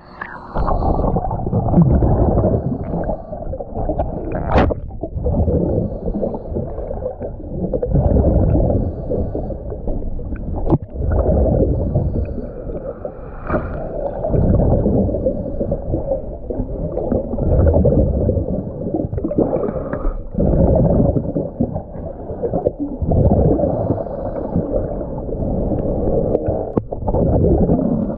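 A scuba diver breathing underwater through a regulator: long gurgling rushes of exhaled bubbles swell and fade every few seconds, with short gaps between breaths.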